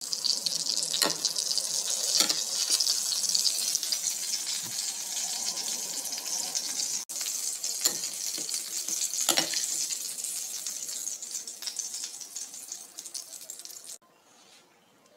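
Steady hissing from kitchen cooking, with a few light clicks and knocks of a utensil against the pot. The hiss cuts off about a second before the end.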